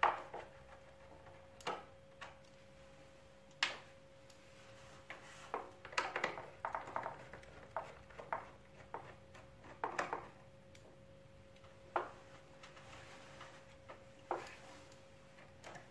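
Screwdriver unscrewing the screws that hold an air conditioner indoor unit's evaporator, with the parts being handled: irregular clicks, taps and short scrapes of metal and plastic, a few every second or two.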